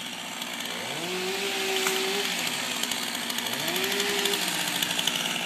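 Two-stroke Stihl chainsaw revved up twice: the engine pitch rises, holds for about a second and drops back toward idle, then rises and falls again a few seconds later.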